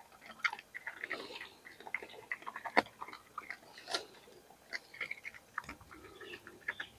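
A pig chewing and biting through prickly pear cactus pads: irregular moist crunches and crackles, with two sharper crunches about three and four seconds in.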